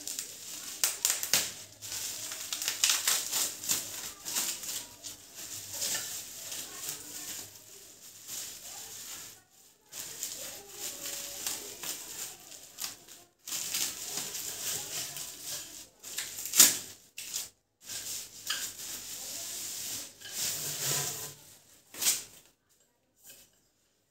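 Plastic packing wrap being slit, torn and peeled off a fan's stand pole. It crinkles and rustles in irregular bursts with sharp crackles and brief pauses, and one loud snap about two-thirds of the way through. It goes quiet shortly before the end.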